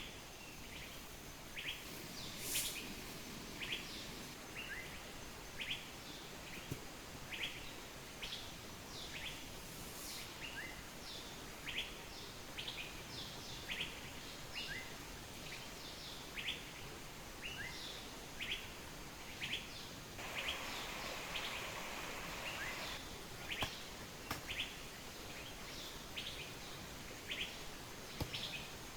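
A small bird repeating short, high chirps about once a second over the steady hiss of a waterfall, with a brief rustle about twenty seconds in.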